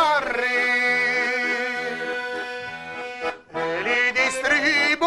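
Diatonic button accordion (organetto) playing an instrumental phrase of a folk ballad: held chords over a pulsing bass. After a brief break about three and a half seconds in, a man's singing voice comes back in with the accordion near the end.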